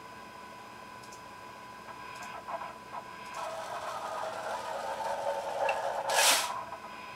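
Linear servo motor axis homing: a few light clicks, then about three seconds in the carriage starts running along its rail with a rising mechanical hum and a steady high whine. Near the end it ends in a short loud clunk, typical of the carriage driving into the hard stop at the end of travel that the sensorless homing uses to find its reference.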